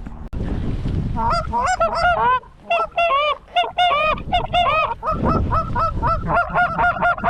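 Rapid, overlapping goose honks and clucks, many short arched notes in quick succession that grow denser toward the end.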